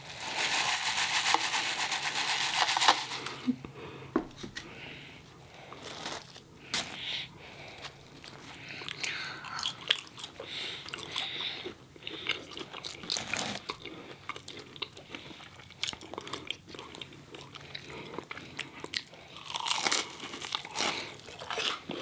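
People biting into and chewing crunchy breaded fried chicken fingers, with many short crisp crunches close to the microphone. A loud steady hiss fills the first three seconds, then stops.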